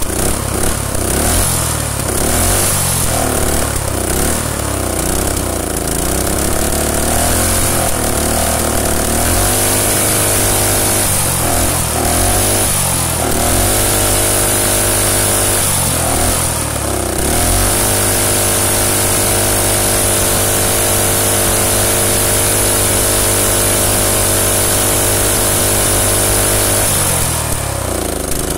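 Predator single-cylinder small engine running without a head gasket, uneven at first, its speed rising and falling for over half the stretch, then settling to a steady speed before slowing near the end. The owner traces the rough running to a carburettor gasket fitted upside down, leaving the low-speed jet's suction hole blocked.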